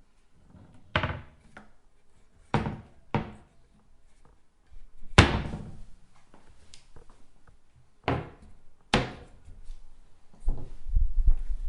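Kitchen drawers being slid open and shut. There are about six separate knocks, each trailing off quickly; the loudest comes about five seconds in. Near the end comes a longer low sliding sound.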